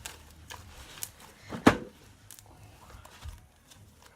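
Homemade slime handled and squeezed in the hands: scattered soft clicks and small pops, with one sharper knock about one and a half seconds in.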